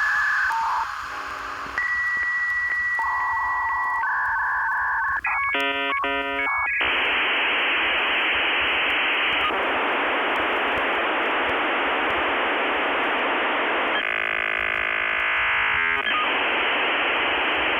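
Dial-up modem connecting over a phone line. First come steady single tones, among them a held answer tone with small regular clicks. About five and a half seconds in there is a brief warbling exchange of tones, then a long steady hiss of handshake noise while the modems negotiate the connection.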